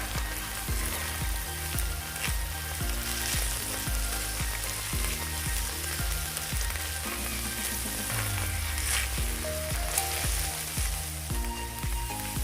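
Kimchi fried rice sizzling on a cast-iron griddle, with a few clicks of a spatula being stirred through it. Background music with a steady beat plays underneath.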